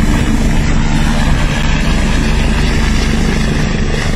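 Eurocopter EC145 helicopter close by, its rotor and turbines running loud and steady.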